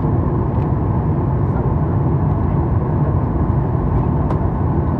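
Steady low rumble and air hiss inside a Boeing 737-800 airliner cabin before departure, with a few faint clicks.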